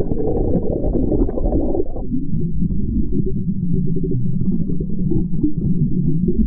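Low, muffled rumble of moving water picked up by an action camera held underwater. About two seconds in it turns duller, losing its higher part.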